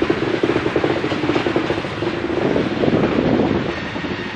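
Norfolk Southern freight train rolling past, steel wheels on the rails giving a dense run of fast clicks over a steady hum.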